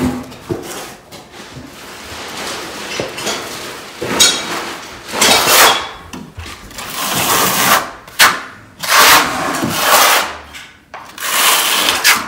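Steel notched trowel scraping thinset tile mortar across a concrete floor, in repeated strokes about a second apart.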